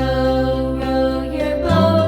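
Background music: sustained pitched notes over a steady low bass, changing chord about every second.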